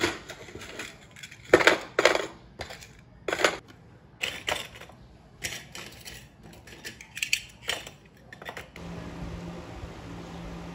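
Metal pin-back buttons clinking against each other as they are dropped and shuffled into a wooden tray: a series of sharp, irregular clinks. About nine seconds in they stop and a steady low hum takes over.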